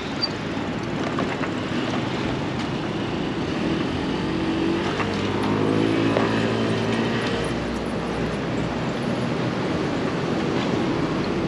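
Street traffic noise, with a passing motor vehicle's engine growing louder toward the middle and then fading.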